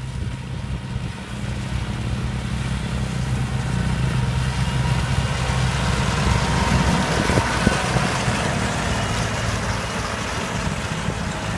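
Kubota L4508 tractor's diesel engine running steadily while it pulls a rice-straw round baler, with the baler's mechanical rattle on top. It grows louder as the tractor comes close, about halfway through, then eases off a little as it moves past.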